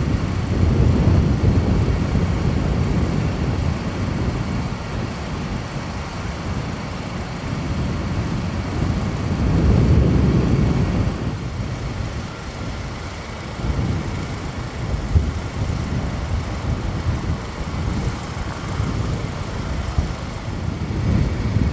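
Low, steady rumble of a Boeing KC-46 tanker's two turbofan engines as the jet flies off in the distance. The rumble eases off, swells again about ten seconds in, then fades to a lower level.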